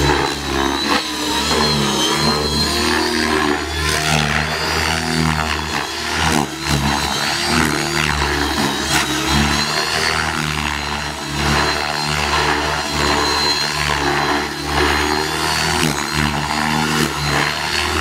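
Radio-controlled helicopter in flight, its motor and rotors running with a high whine whose pitch rises and falls as it throws aerobatic manoeuvres.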